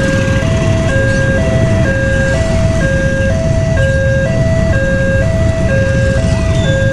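Railway level-crossing warning alarm sounding two alternating electronic tones, a lower and a slightly higher one, each about half a second, repeating evenly. Underneath is a steady low rumble of motorbike engines running at the crossing.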